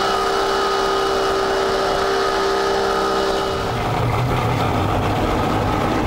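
Twin outboard engines of an RNLI inshore lifeboat running fast at sea, a steady engine whine over the hiss of rushing water and wind. About two-thirds of the way through it changes abruptly to a low rumble as the engines run slowly in calm harbour water.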